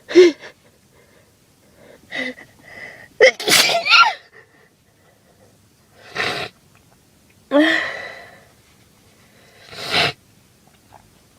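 A woman sneezing several times, sharp loud sneezes a few seconds apart with breaths in between.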